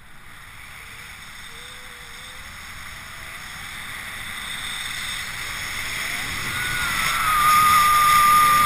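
Wind rushing over the camera microphone during a tandem paraglider flight, growing steadily louder as the glider banks into a steep turn. A high held tone joins in over the last two seconds.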